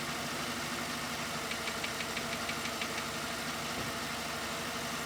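Skoda Octavia A5 engine idling steadily with a knock; around the middle a run of quick, light ticks, about eight a second, is heard for just over a second.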